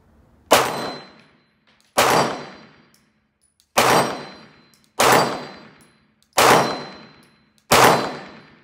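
Glock 45 MOS 9mm pistol firing six deliberate shots about a second and a half apart, each sharp report followed by a short decaying echo.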